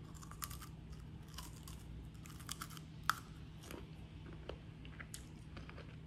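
Crunchy Cheetos being bitten and chewed: a run of faint, irregular crisp crunches and crackles, with one sharper crack about three seconds in.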